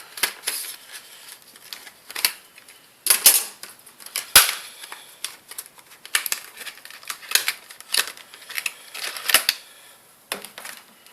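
Irregular sharp clicks and clacks of small hard parts and tools being handled during laptop disassembly, with the two loudest knocks about three and four and a half seconds in.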